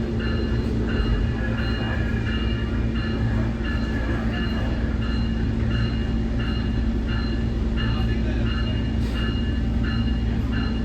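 Nippon Sharyo diesel multiple unit running steadily with a low rumble and hum, while a bright electronic bell repeats about twice a second.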